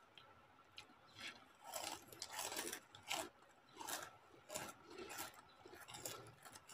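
People biting and chewing crispy fried snack chips, a run of irregular crunches close to the microphone.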